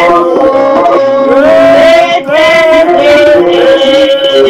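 A man singing a slow worship song in long, held notes that glide from one pitch to the next.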